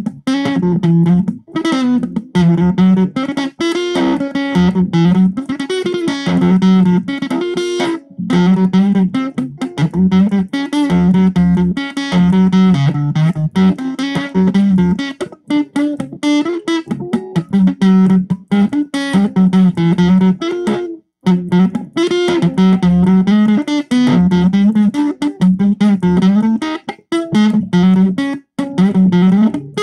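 Stratocaster-style electric guitar played through a Zoom 506 distortion pedal: a repeating distorted riff of short, choppy phrases with a low note that keeps coming back, broken by a couple of brief pauses.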